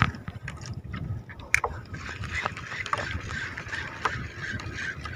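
Seawater slapping and sloshing against the hull of a small outrigger boat, with wind on the microphone. Several sharp clicks and knocks from handling gear come through at intervals.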